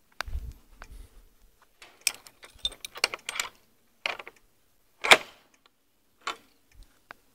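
Metal gate bolt and padlock being worked by hand: a series of separate clicks and short metallic rattles, the sharpest about five seconds in.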